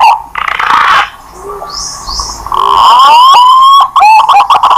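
Green pigeon (punai) lure call: loud whistled notes that warble and glide upward. A short burst of hiss comes just after the start, then a quieter gap, and a run of rising whistles about three seconds in.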